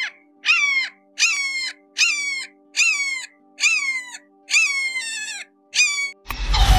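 A hawk calling: a run of about eight sharp cries, each falling in pitch, one roughly every 0.8 seconds, over a faint steady hum. Just before the end a loud burst cuts in as guitar music starts.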